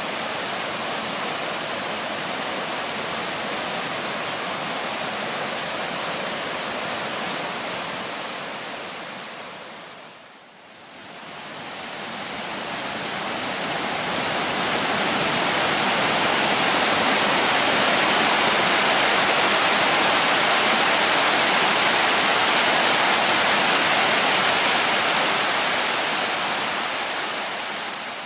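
Waterfall rushing: a steady hiss and roar of water pouring over rock ledges into a pool. It fades down and back up about ten seconds in, runs louder after that, and fades out at the end.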